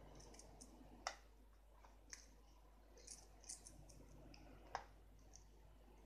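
Near silence with a few faint, short, high chirps from caged pet parrots. Two sharp clicks stand out, one about a second in and one later.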